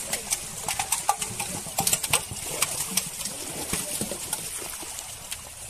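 Scattered sharp clicks and knocks, thickest in the first three seconds: plastic crates and metal pots being handled in the open.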